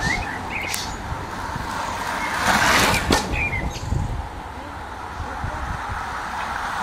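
Wind buffeting the microphone outdoors, an uneven low rumble, with a few short bird chirps and one sharp click about three seconds in.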